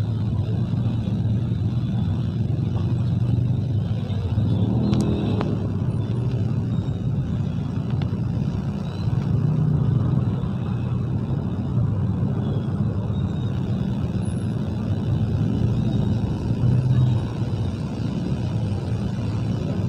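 Traffic noise from a congested city road: car and motorbike engines running in a slow-moving jam, with one sharp knock about five seconds in.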